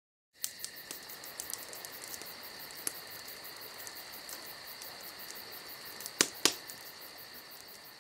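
Sound effect for an animated title card: a steady high-pitched tone with crackling ticks scattered through it. Two sharp clicks, a quarter second apart, come about six seconds in.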